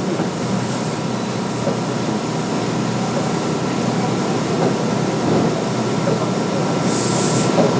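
Interior sound of a Kintetsu 9200 series electric train with field-chopper control: a steady rumble and hum, with a faint steady whine above it.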